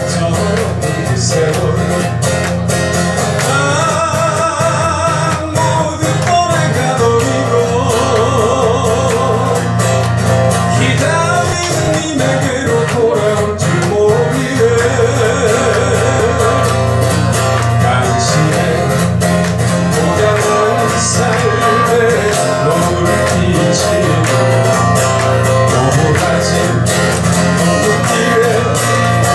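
Acoustic guitar music: a steady guitar accompaniment with a wavering melody line over it.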